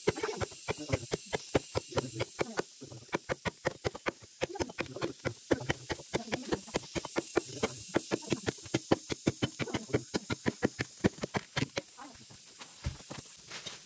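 Steel chopper blade hacking into a tree trunk: rapid sharp strikes, about three or four a second, thinning out near the end.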